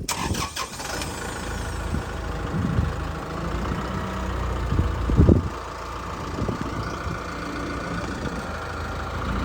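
An engine running steadily, with a few low thumps about five seconds in.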